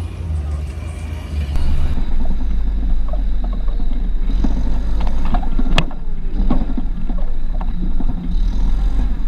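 An off-road vehicle's engine running, with a heavy low rumble. About two seconds in, the rumble grows rougher, with scattered sharp knocks through the rest.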